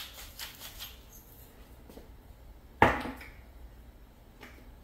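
A few faint clicks at the foil pan, then one sharp knock about three seconds in, the loudest sound, as a salt container is set down on the stone countertop.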